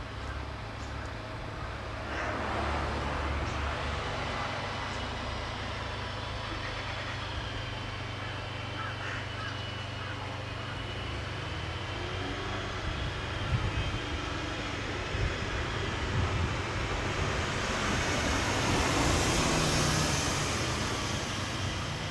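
Outdoor ambience dominated by the noise of a passing motor vehicle, which grows louder, peaks near the end and then fades, over a steady low hum. A couple of brief knocks stand out in the middle.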